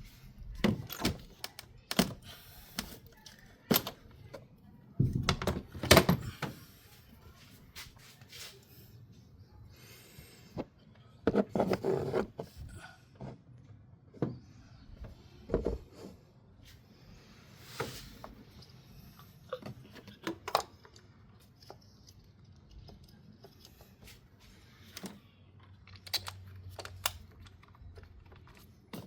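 Irregular clicks, knocks and clatter of tools and engine parts being handled during spark plug work on a car engine, with two longer bursts of rattling, one about five seconds in and one near the middle.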